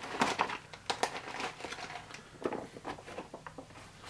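Plastic MRE bag crinkling as its sealed ration packets are tipped out and slide onto a tray, rustling and clattering. The sound is busiest in the first second, then thins to scattered light ticks.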